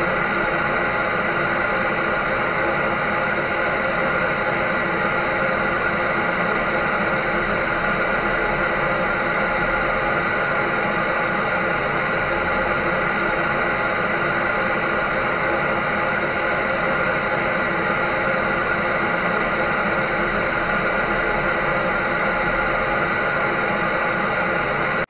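Clothes dryer running steadily: an even whirring hiss with a few faint steady hum tones, unchanging throughout.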